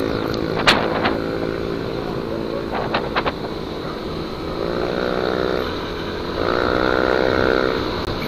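Single-cylinder Yamaha NMAX scooter engine running while riding, with steady road and wind noise. A sharp knock comes under a second in and a quick cluster of knocks around three seconds in. The engine note swells twice in the second half.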